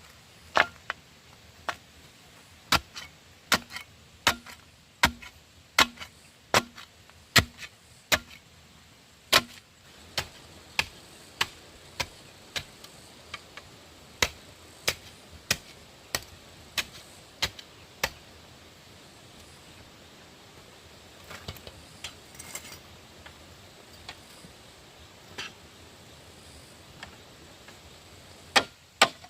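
Repeated sharp strikes of a hand tool on wood, about one to two a second, some with a short ring. The strikes stop about two-thirds through, leaving faint rustling and a few soft knocks, and pick up again near the end.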